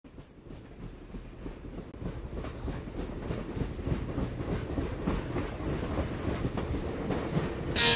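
A train running on rails with a rhythmic clickety-clack, growing steadily louder as it approaches. A guitar-led country band comes in just before the end.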